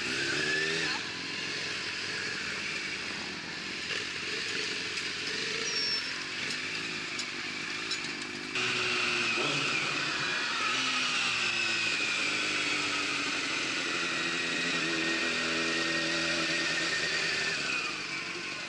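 Motorcycle engine running and revving, its pitch rising and falling; the sound jumps abruptly louder about eight and a half seconds in.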